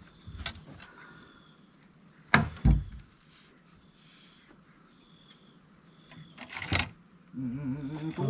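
A few sharp knocks and thumps: one about half a second in, a loud double knock about two and a half seconds in, and another near seven seconds. A low wavering voice without words begins near the end.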